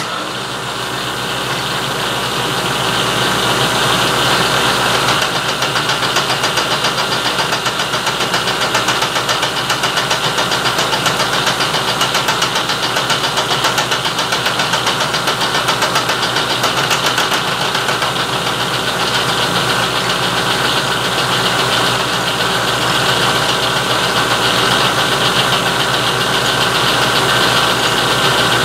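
Fly cutter on a vertical milling machine taking a light finishing pass across quarter-inch steel: a steady machining noise with a rapid, even ticking as the single tool bit strikes the work on each turn of the spindle.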